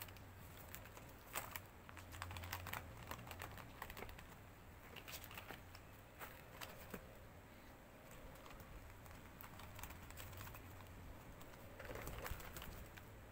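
Faint, irregular light clicks and taps, a few louder ones about a second in and near the end, over a low steady hum.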